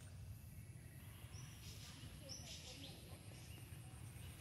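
Faint outdoor ambience: a few short, high bird chirps over a steady, fast-pulsing high insect trill and a low rumble.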